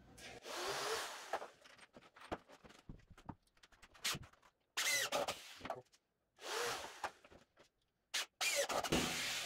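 Cordless drill driving screws into a wooden pine frame in short bursts about a second long, with knocks and clicks of the lumber being handled between them.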